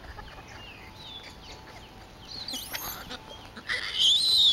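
Silvered leaf monkeys screaming as they fight: a short shrill call about two and a half seconds in, then a loud, high, drawn-out scream near the end.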